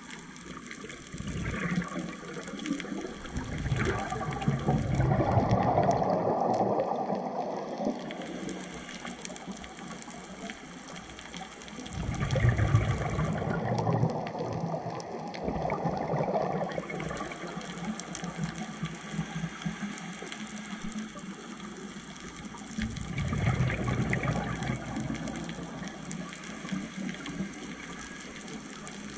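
Scuba diver breathing through a regulator underwater: three long bubbly exhalations, each several seconds, about ten seconds apart, with quieter stretches between.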